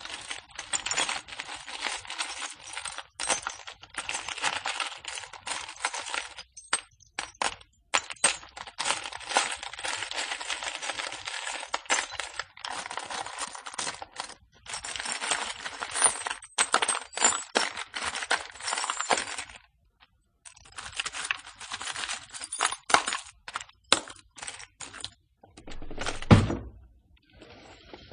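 Metal screws and nails rattling and clinking against one another in long, dense runs of small clicks, with a brief pause about two-thirds through and a heavier knock near the end.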